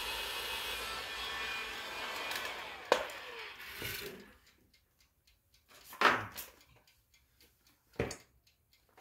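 A small electric motor runs with a steady whirr, is switched off with a click about three seconds in and winds down with a falling whine. Then come two sharp knocks, about six and eight seconds in.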